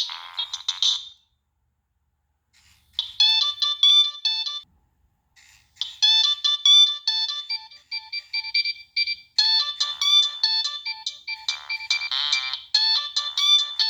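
Nokia 3588i mobile phone playing its preloaded ringtones. One electronic tune ends about a second in, and after a short gap a new high-pitched melody of quick notes starts, pauses briefly and carries on.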